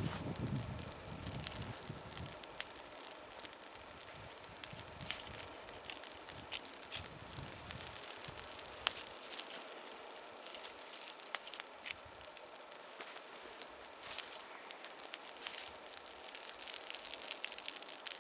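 Small fire of bark and kindling burning on a tree stump, crackling with many irregular sharp pops over a faint hiss.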